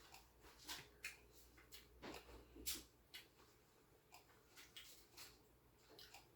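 Faint eating sounds: irregular soft mouth clicks and smacks of someone chewing chewy instant ramen noodles.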